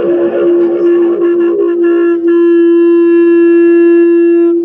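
Music of sustained wind-instrument notes: one low note held steady throughout, joined about two seconds in by a higher, brighter held note.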